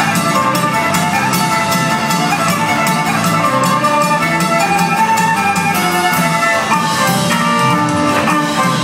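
Live band playing a fast country fiddle tune on fiddle, two pianos and drum kit, with quick runs of notes over a steady beat.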